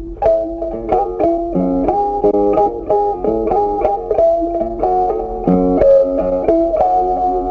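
Background music: a quick, plucked guitar melody, several notes a second.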